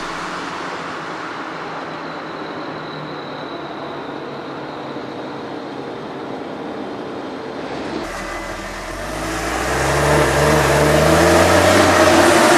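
Forage harvester and tractors working a maize field at a distance: a steady, even rumble. About eight seconds in it changes to a New Holland tractor's engine heard inside the cab, running and growing louder.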